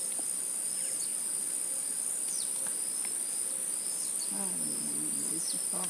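Insects droning in one steady, high-pitched note, with a few short falling chirps over it and a faint voice near the end.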